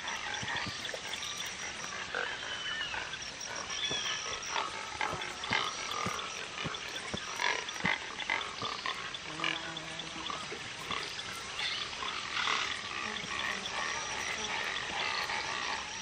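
Nesting anhinga colony: chicks begging with many short, croaking and chattering calls as adults feed them, over a steady high whine in the background.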